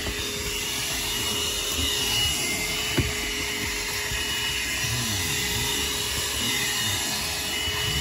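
RNG Eko Green RNG-2001 150-watt, 12-volt handheld car vacuum cleaner running steadily with a constant hum and whine, sucking up onion-skin debris from a rubber car floor mat. A single sharp click about three seconds in.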